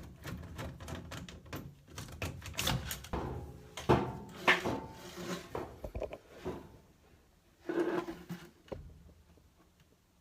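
Metal dryer vent duct being taken apart at a joint: a rapid clatter of clicks, knocks and scraping, with one last short scrape near the end.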